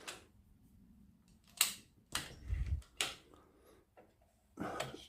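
A few sharp clicks and a dull low knock from a Webley Eagle air rifle's trigger being pulled with a trigger pull gauge and letting off, during a trigger-weight measurement.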